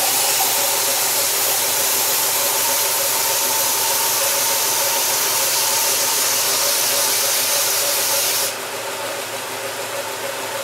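A steady rushing hiss of water from the garden hose flushing the cooling system, which cuts back sharply about eight and a half seconds in, over the steady hum of the idling engine.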